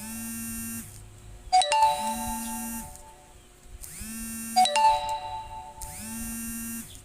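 Mobile phone ringing with an incoming call. A ding-dong chime ringtone repeats about every three seconds, alternating with a short buzz.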